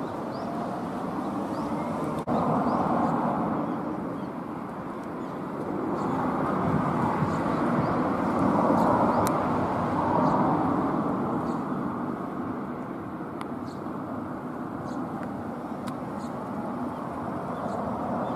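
Road traffic: a steady rush of car tyres and engines that swells and fades as vehicles pass, with a sudden jump in level about two seconds in.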